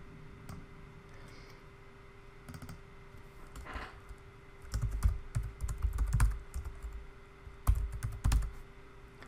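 Typing on a computer keyboard: a few separate clicks, then two short runs of keystrokes with heavy low thuds, about five seconds in and again near the end. A faint steady hum underneath.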